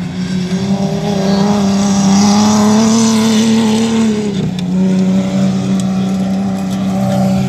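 Jeep race truck's engine running hard on a dirt track as it drives close past. Its steady engine note climbs slightly, then drops in pitch about four seconds in as the truck goes by.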